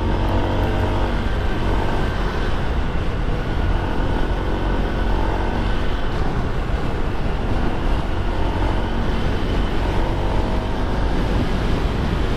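Riding a Honda SH150i scooter: its single-cylinder engine runs under a steady rush of road noise, and a pitched engine note stands out near the start and again near the end.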